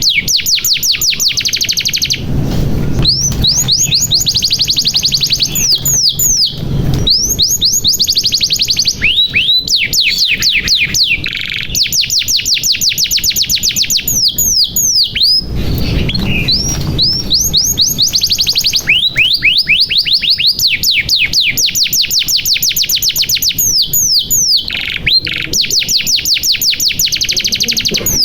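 Domestic canary singing rapid trills: runs of fast repeated falling notes, many per second, in long phrases with brief breaks between them.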